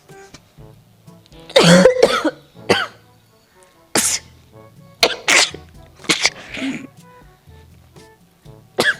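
A woman sneezing and coughing in a series of about seven sharp, loud bursts, brought on by something pungent up her nose. Faint background music runs underneath.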